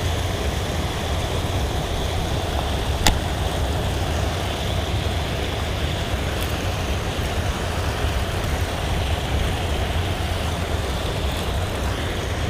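River water rushing steadily over a concrete weir, a constant roar with a deep rumble underneath. A single sharp click comes about three seconds in.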